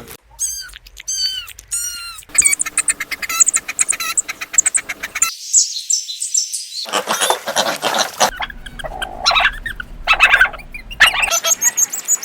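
A string of animal calls, mostly high chirping and peeping calls that bend in pitch, with the sound changing abruptly several times.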